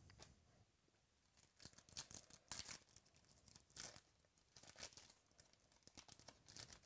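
A foil baseball-card pack wrapper being torn open and crinkled by hand, in a series of short rips and crinkles.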